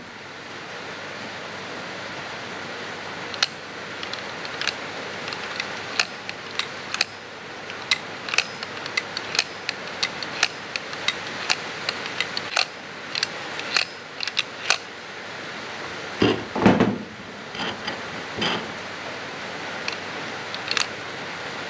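Irregular sharp clicks and taps of tools and small metal parts on a Toyota 1UZ VVTi drive-by-wire throttle body being taken apart, with a few heavier knocks about three-quarters of the way through, over a steady hiss.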